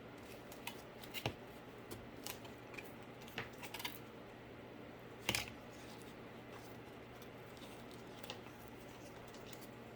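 Scattered small clicks and snips of hands working cardboard with craft tools, the loudest about five seconds in, over a steady low hum.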